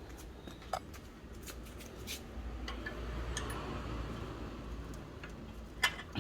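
Light metallic clicks and taps of spanners working the rear axle nut of a bicycle, the axle held on one side while the nut is turned on the other, with a sharper clack near the end.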